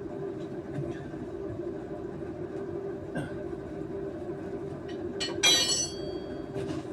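Metal bars knocking and scraping against a metal wheel rim, with light clicks. About five seconds in comes one sharp metallic clank that rings on briefly. A steady low hum sits underneath.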